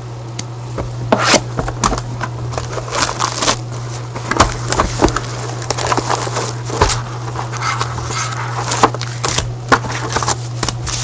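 Sealed boxes of trading cards being opened by hand: plastic wrap and cardboard crackling and scraping in many short, irregular bursts, with a steady low hum underneath.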